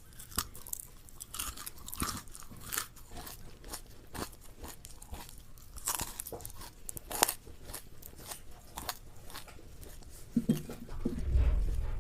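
Crunchy food bitten and chewed close to the microphone: irregular sharp crunches, with a heavier low rumble and thumps starting near the end.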